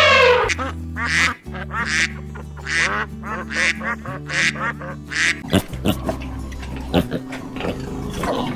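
A duck quacking about six times in a row over background music, then scattered clicks and rustling in the last few seconds.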